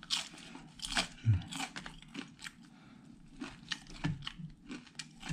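Close-up crunching and chewing as a crispy fried snack is bitten and chewed: a string of sharp, irregular crunches, the loudest near the start and about a second in.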